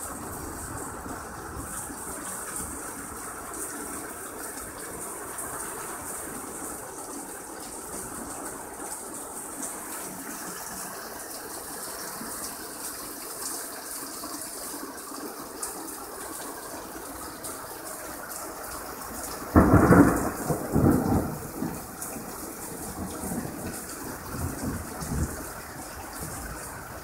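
Heavy rain pouring steadily. About twenty seconds in, a sudden loud thunderclap rumbles for a second or two, followed by a few weaker rolls of thunder a few seconds later.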